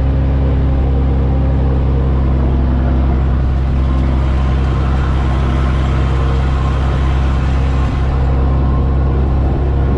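Kenworth T800's Caterpillar C-15 diesel engine droning steadily at highway speed, heard from inside the cab with road noise; the pitch holds, with no gear change or engine-brake stutter.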